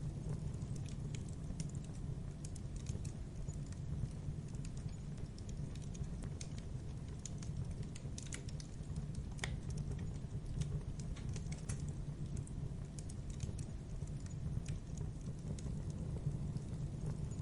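Fire crackling: a steady low roar of burning with irregular sharp snaps and pops scattered throughout.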